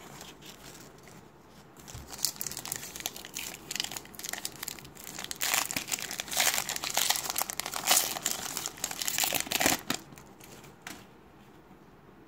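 Foil wrapper of a Topps WWE trading card pack crinkling and tearing as it is ripped open by hand. The crinkling starts about two seconds in, grows loudest in the middle and stops near the end.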